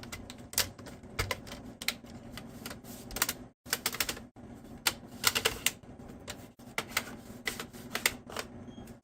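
Plastic screen bezel of an Acer Aspire E5-532 laptop being pressed back onto the lid, its clips snapping into place in a run of sharp, irregular clicks.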